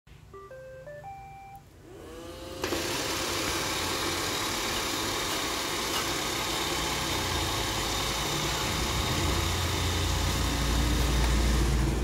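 iRobot Roomba 780 robot vacuum starting a cleaning run: its Clean button sets off a short rising tune of beeps, then its motors spin up with a rising whine and it runs with a steady whirring of vacuum motor and brushes. The whirring grows louder and deeper in the last few seconds as it drives off.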